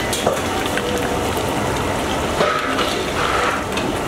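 Tamarind paste with peanuts and chillies cooking in oil in a pan: a steady sizzling and bubbling, stirred with a ladle.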